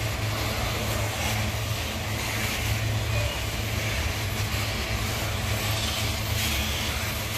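Loaded iron-ore gondola wagons rolling slowly along the rails, a steady rumbling of wheels and a rough rattling hiss, over the constant low drone of a diesel locomotive engine.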